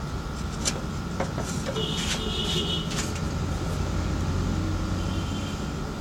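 Electric drill spinning the sanding cylinder of a homemade drum sander, with wood being sanded against it: a steady motor hum with scattered clicks, and a brief higher whine about two seconds in.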